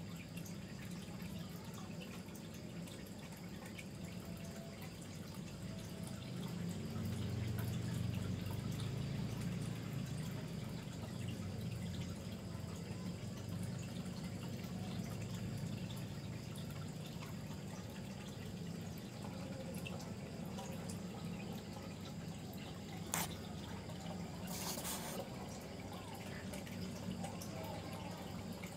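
Aquarium water bubbling and dripping from the tank's aeration, over a steady low hum. There is a single sharp click about 23 seconds in, and a brief rush of noise a second or so later.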